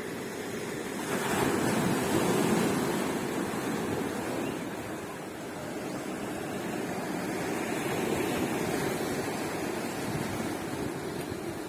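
Sea waves breaking on a beach: a steady wash of surf that swells about a second in and again later.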